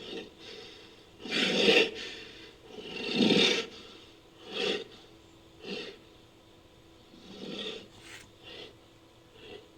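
Designed giant-ape (Gigantopithecus) creature sound effect: a series of rough, breathy huffs, two long louder ones followed by about five shorter, quieter ones.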